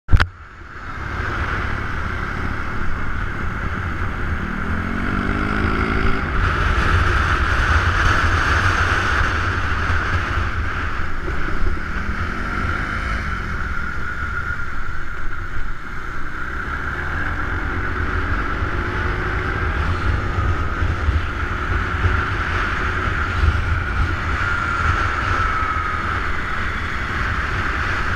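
Heavy wind rumble on an action camera on a moving motorbike, with engine notes that rise and fall in pitch a few times as the bikes work through the bends.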